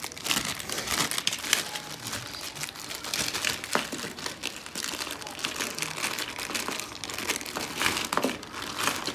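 Thin clear plastic packaging bag crinkling and rustling in irregular crackles as hands pull it open and slide a flexible tripod out of it.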